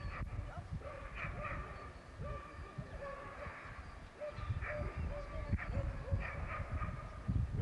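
Sighthound yelping and whining in repeated short, high-pitched cries: the excited noise of a coursing hound held back at the start.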